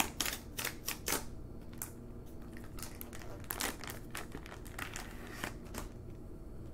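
Plastic shrink wrap crinkling and crackling as it is torn off a sealed floppy disk package. The crackles come thick in the first second, then scattered.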